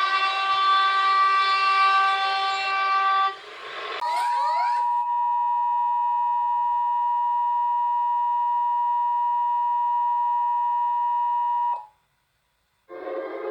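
An emergency alert broadcast: a loud, steady buzzing alarm tone for about three seconds, a brief rising sweep, then the Emergency Alert System's two-tone attention signal held steady for about eight seconds before cutting off abruptly. Just before the end another alert tone starts.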